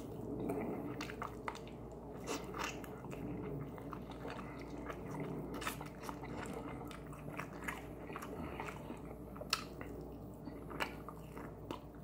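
A person biting and chewing Korean-style fried chicken wings, pulling the meat off the bone: a steady run of small crunches and mouth clicks, with two sharper ones near the end.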